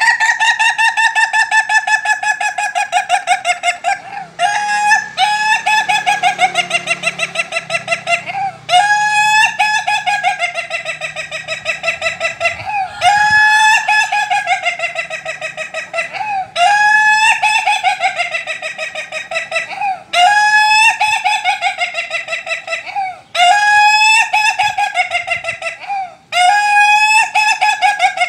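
An Ayam Ketawa laughing rooster crowing about eight times in a row. Each crow is a long run of rapid, stuttering syllables lasting three to four seconds, starting sharply and dipping in pitch before levelling off, with short breaks between crows.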